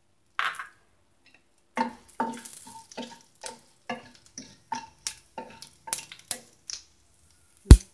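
A spatula stirring and scraping panch phutana whole spices (cumin, fenugreek, mustard, nigella and fennel seed) and dried red chillies frying in hot ghee in a kadai. The strokes come about twice a second, each with a faint ring from the pan, over a light sizzle. A single sharp knock near the end is the loudest sound.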